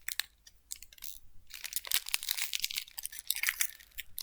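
Foil wrapper of a Pokémon card booster pack crinkling and tearing as it is torn open by hand, in irregular crackly bursts.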